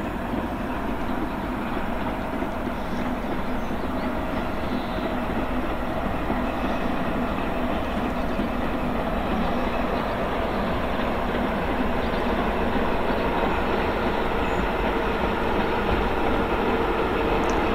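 High Speed Train with Class 43 diesel power cars running past: a steady engine drone over wheel and rail noise that slowly grows louder as the train draws nearer.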